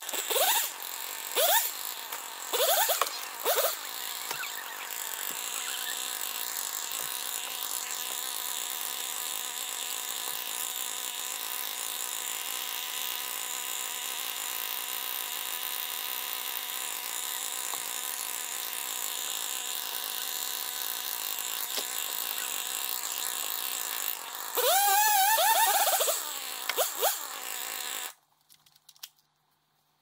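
Husqvarna T540 XP Mark III two-stroke top-handle chainsaw running: a few quick throttle blips, then idling steadily, one louder rev near the end, and it cuts off suddenly.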